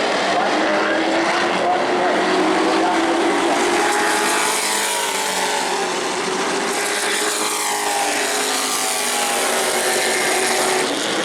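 A field of Pro Truck race trucks at racing speed on an oval, several engines running hard together, their pitch sweeping down as trucks go past.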